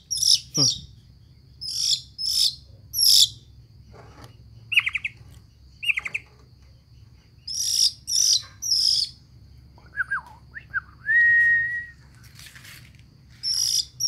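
Red-billed blue magpie giving harsh, rasping calls in clusters of two or three, with a few shorter pitched notes between them and a clear whistled note about eleven seconds in.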